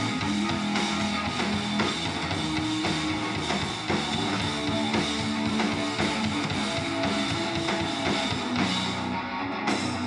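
Live rock band playing: electric guitar, bass guitar and drum kit.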